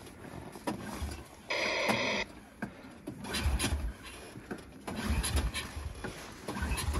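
Irbis Tungus snowmobile engine being cranked once, a brief whirring turn-over of under a second that does not catch: a no-start that turned out to be a spark plug lead come off its plug. A few dull low thumps follow.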